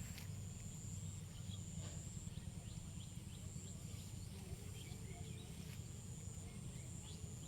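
Outdoor rural ambience: a steady low rumble under a continuous high-pitched whine, with faint short chirps scattered through.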